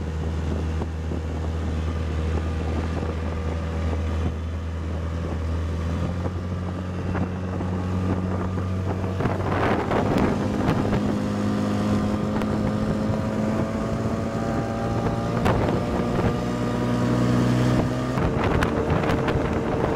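Vikhr 30 two-cylinder two-stroke outboard motor running under way, rising in pitch about six seconds in as the boat speeds up, then running steadily at part throttle. Wind buffets the microphone.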